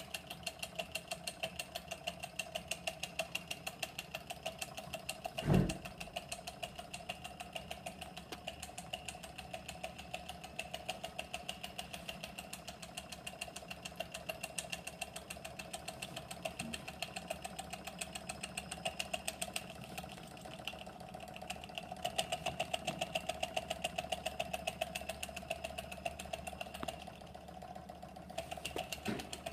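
1909 Carette hot-air (Stirling-type) model engine running, its mechanism clicking steadily about four times a second. There is a single louder thump about five and a half seconds in.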